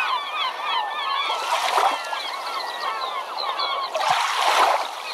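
A flock of birds calling over one another in many short, overlapping, swooping calls. Two louder bursts of rushing noise come in, one about a second and a half in and one about four seconds in.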